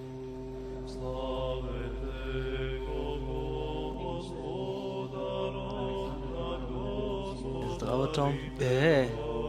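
Slow vocal chant with long held low notes that shift pitch every second or so. A man's spoken greeting comes in near the end.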